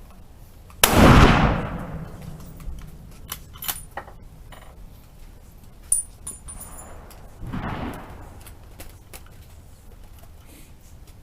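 A loud rifle shot just under a second in, its report echoing away over about a second, then a second, quieter shot from farther down the line about 7.5 s in. Light clicks and a short metallic ring come in between.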